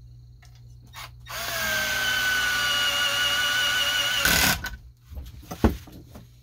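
Cordless screwdriver running steadily for about three seconds, driving a screw into a Stihl 028 chainsaw's engine, and ending in a brief louder burst. A sharp knock follows about a second later.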